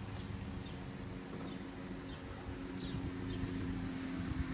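Parked minivan's engine idling with a steady low hum, and faint short bird chirps now and then.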